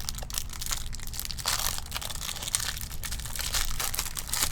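Crinkling and rustling of plastic packaging as a trading card pack and its wrapper are handled, a dense run of small irregular crackles.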